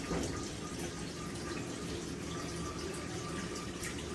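Water trickling and dripping steadily, the constant background of running water in a guppy breeding tank setup.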